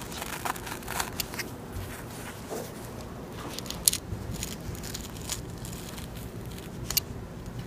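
Utility-knife blade slicing through the skin of a rabbit pelt, a little at a time: faint scattered crackles and ticks, the clearest about four seconds in and another near the end.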